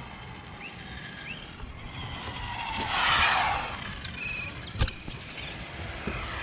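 Electric RC car driving past on asphalt: motor and tyre hiss swell to a peak about three seconds in and then fade. A single sharp click comes near five seconds.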